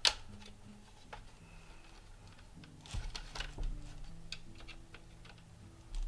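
Plastic snap clips of a laptop's case clicking loose as the top cover is pried and pulled away from the bottom case. There is a sharp click right at the start, a cluster of clicks and creaks about three seconds in, and scattered light ticks after.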